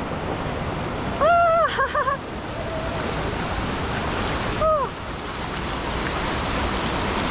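Mountain stream water rushing steadily over rocks. A woman makes two short high-pitched vocal sounds without words, one about a second in and a shorter one near five seconds.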